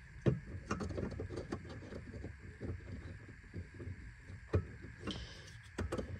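Handling noise: irregular soft knocks and rubbing close to the microphone over a low rumble.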